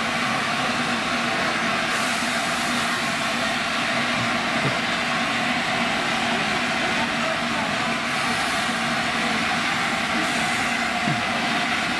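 Steam locomotive moving slowly away, with a steady hiss of steam.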